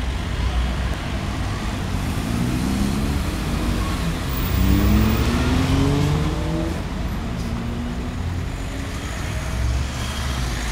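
City street traffic with a motor vehicle accelerating past. Its engine note climbs twice, from about two to four seconds in and again from about four and a half to seven seconds.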